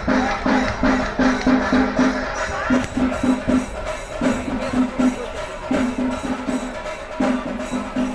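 Drums beating a fast, even rhythm of about four to five strokes a second, in runs broken by short pauses, over a busy background din.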